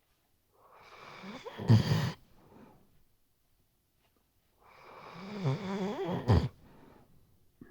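A sleeping Weimaraner snoring: two long snoring breaths a few seconds apart, each building up and ending in a short, loud snort, with quiet in between.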